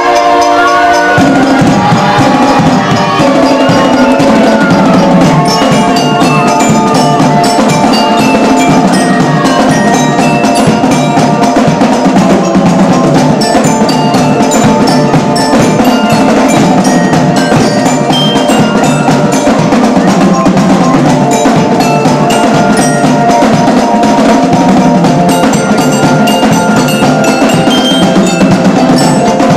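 Marching display band playing: a held melody line with glockenspiels ringing and snare drums beating, loud and continuous, with a fuller low end joining about a second in.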